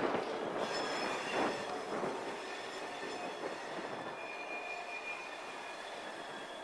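Steel train wheels squealing on the rails as two CN Geep diesels move slowly with a string of covered hopper cars. A thin, high, wavering squeal comes and goes, strongest for about a second some four seconds in.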